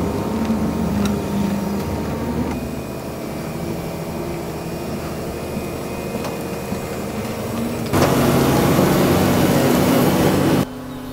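Volvo EC300EL tracked excavator's diesel engine running with a steady hum. About eight seconds in, a louder rushing noise comes in for a few seconds and then cuts off suddenly.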